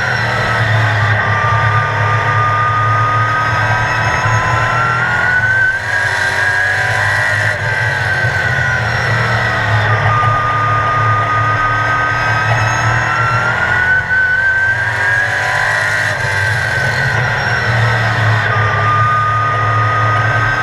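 Sportsman stock car's racing engine under way, heard from inside the car. Its pitch climbs down each straight and falls away as the driver lifts off for the turn, in a repeating cycle about every eight seconds.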